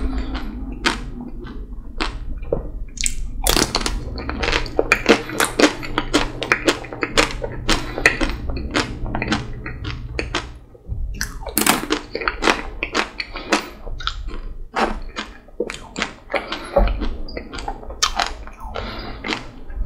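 Close-miked biting and chewing of a chocolate-coated Magnum Double Raspberry ice cream bar. The hard chocolate shell cracks and crunches in quick, irregular clicks.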